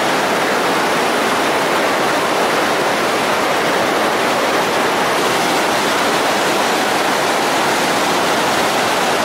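Whitewater rapids of a large river rushing, a steady, even noise of churning water.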